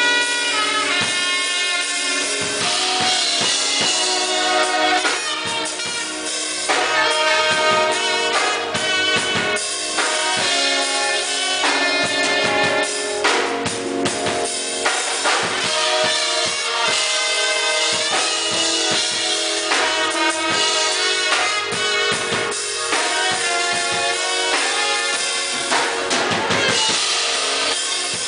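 Instrumental music with a drum kit keeping a steady beat under sustained pitched instruments.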